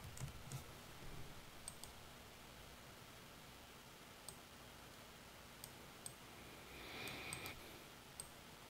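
Sparse, faint clicks of a computer mouse and keyboard at irregular intervals against quiet room tone, with a soft hiss about seven seconds in.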